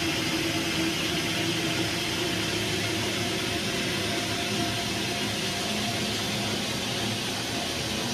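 Steady rushing hiss of water and air moving through an air-over-media iron and sulfur filter as its rapid rinse ends and the air cap rebuilds, with a low hum that fades out about halfway through.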